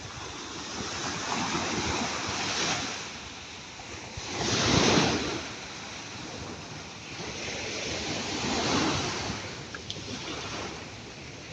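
Ocean waves breaking and washing up the shore, the surf swelling and fading three times, with the loudest wave about halfway through.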